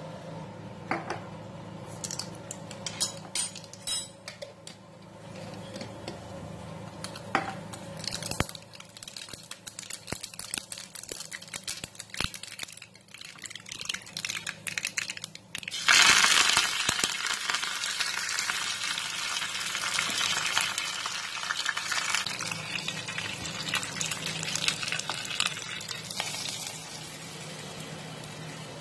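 Mustard seeds crackling and popping in hot oil in a small pan for a tadka. Just past halfway a sudden loud sizzle starts, typical of curry leaves hitting the oil, and it runs on steadily before dropping away near the end.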